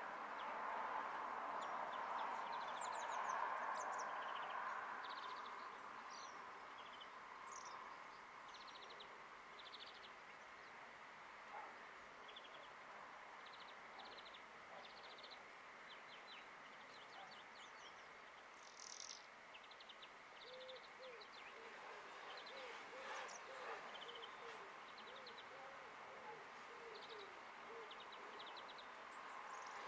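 Garden birds calling and singing faintly: many short, high chirps and brief song phrases throughout, with a run of low, repeated hooting notes in the second half. A steady rushing noise, loudest at the start, fades away over the first several seconds.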